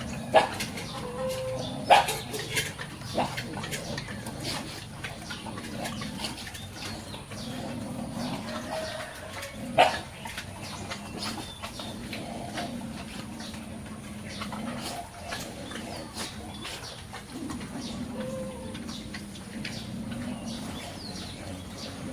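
Pigs grunting in low, repeated calls, with a few sharp knocks, the loudest about two seconds and ten seconds in.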